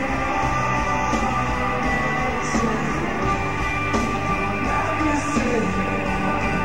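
Live rock band playing, with layered chords held under a singing voice.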